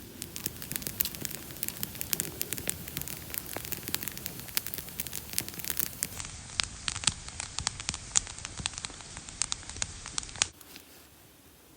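Wood fire crackling, with many sharp pops over a low hiss; it cuts off suddenly near the end.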